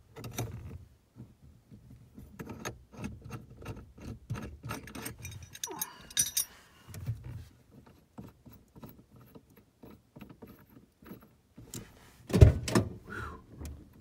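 Clicks and metal rattles as a lock plate compressor tool is worked and backed off the steering shaft of a 1983 Oldsmobile Cutlass column, with the ignition keys jangling against the column. A loud knock comes about twelve seconds in.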